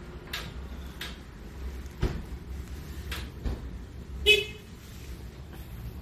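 Low street-traffic rumble with a few light clicks and a soft knock, then a short vehicle horn toot about four seconds in, the loudest sound.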